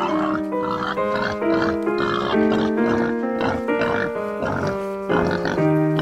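Background music, a melody of short stepping notes, playing over the calls of a group of piglets.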